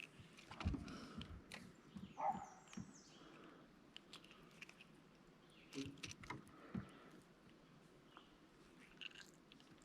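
Faint, scattered clicks, taps and rustles of hands handling a small caught fish and fishing tackle.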